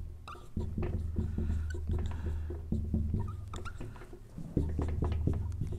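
Dry-erase marker squeaking and tapping across a whiteboard in short, irregular strokes as a word is written out.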